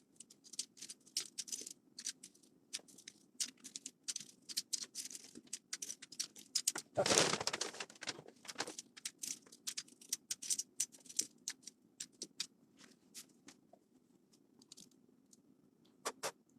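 Small hard plastic pieces, such as keyboard keycaps, and paper being handled on a table: many light clicks and clatters, with a longer rustling scrape about seven seconds in.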